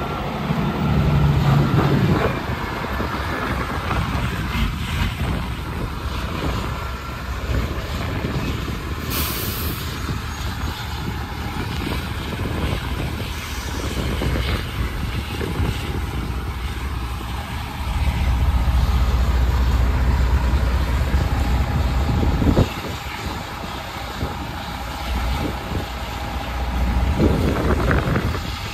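Heavy diesel truck engines running steadily, with a short high hiss about nine seconds in. A deeper engine rumble swells past the middle and stops abruptly with a sharp knock.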